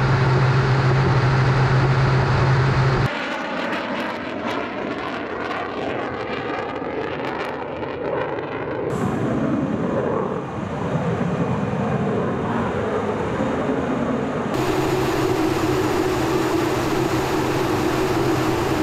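Twin-engine Sukhoi fighter jet engines over several cut-together clips. First comes a steady drone with a strong low hum, heard from aboard the jet in flight. Then a jet passing at a distance, its noise sweeping in pitch as it goes by, and a steady jet drone after a cut near the end.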